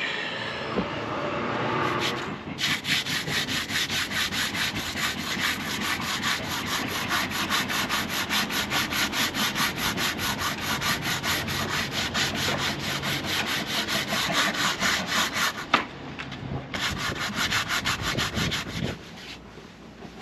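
Teak board being sanded by hand in quick, even back-and-forth strokes. The strokes pause briefly about three quarters of the way through, then start again.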